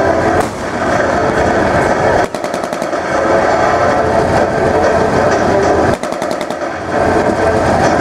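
Tracked armored vehicles driving slowly: diesel engines running with a steady drone and tracks clattering in rapid runs of clanks.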